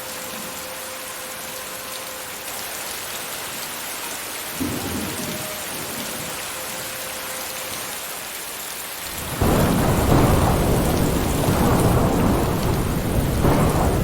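Steady rain hissing down, with a brief low rumble of thunder about four and a half seconds in. About nine seconds in, a loud peal of thunder breaks in suddenly and rolls on, swelling twice.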